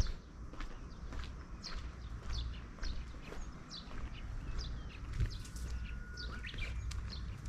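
Small birds chirping: short, high calls that fall in pitch, repeated about twice a second.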